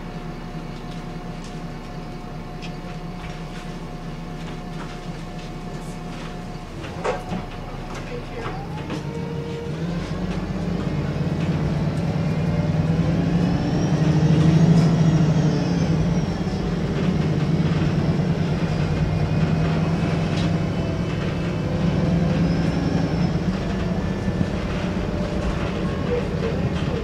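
VDL SB200 bus's diesel engine running, heard from inside the Wright Pulsar 2 body: it idles steadily at first, then from about ten seconds in it pulls away, getting louder with whines rising in pitch. A single sharp knock about seven seconds in.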